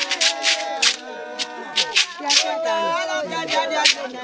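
Gourd rattles shaken in a fast, even rhythm for about the first second, then in a few separate shakes, under voices singing.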